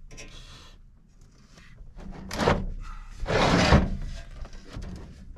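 A large sheet-metal snow splitter being shifted and lifted on a pickup's tailgate, the metal scraping and clattering. The loudest noise comes about two and a half and three and a half seconds in.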